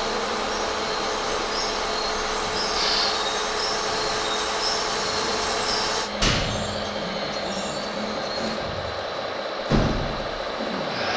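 Radio-controlled model tractor and truck running through dirt: a steady mechanical whine and rumble with a couple of held tones. Two short thumps stand out, about six seconds in and again near ten seconds.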